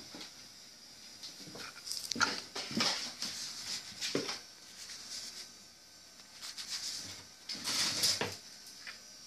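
Cardboard box rustling and scraping against a tiled floor as a cat moves about inside it, in several short bursts.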